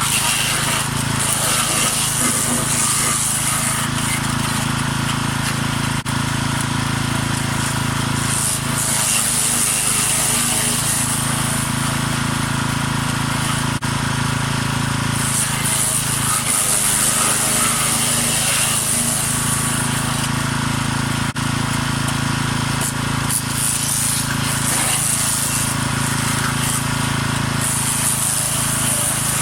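Small petrol wood chipper with a 6 hp engine running steadily, with a high hiss that swells and fades every few seconds.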